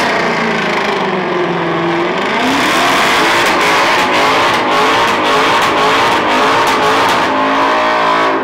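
Ford Mustang doing a burnout: the engine is held at high revs that rise and fall while the spinning tyres squeal. The revs climb again near the end.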